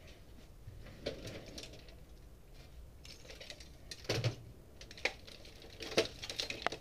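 A hand rummaging through a drawer of tools and wires, with scattered clinks and clatters of metal on metal. The loudest are about four and six seconds in.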